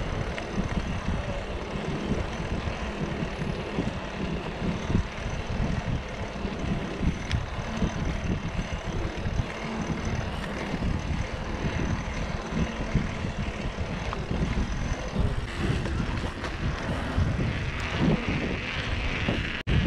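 Wind buffeting the microphone together with the tyre rumble of a mountain bike being ridden on city streets. About four seconds from the end, the noise turns rougher and hissier as the tyres roll over paving stones.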